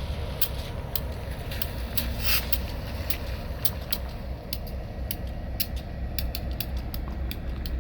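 Idling EMD GP-series diesel locomotives with the air compressor running (bumping air): a steady, pulsing low rumble. Many sharp, irregular clicks sound over it, with a short hiss about two seconds in.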